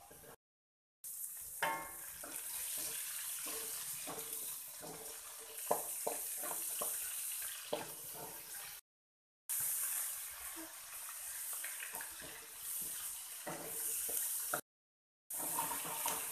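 Hot oil sizzling in a wok as garlic, prawns and then kai lan greens stir-fry, with a wooden spatula scraping and knocking against the wok, including a ringing knock about two seconds in. The sound cuts out abruptly a few times.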